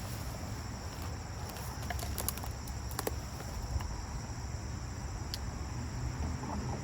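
Outdoor pond-bank background of insects chirping steadily at a high pitch over a low rumble, with a few short sharp clicks about two to three seconds in.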